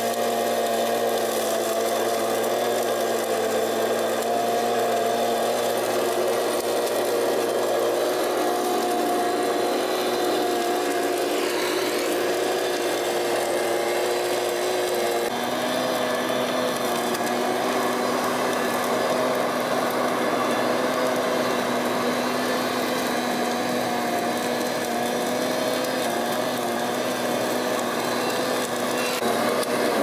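Stihl petrol vacuum shredder's two-stroke engine running steadily as its nozzle sucks at the sand. About halfway through, the engine note steps slightly higher.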